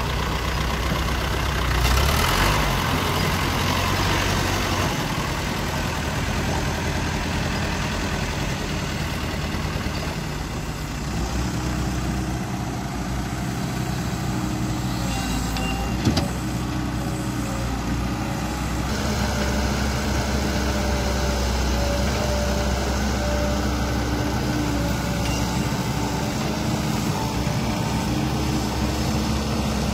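Diesel engines of a Cat E120B tracked excavator and a small dump truck running steadily as the excavator loads the truck. There is a brief louder rush about two seconds in and a single sharp knock about sixteen seconds in.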